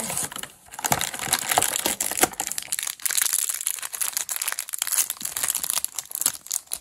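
A cardboard calendar door torn open, then a foil toy blind bag crinkled and torn: a dense run of crackles and rustles.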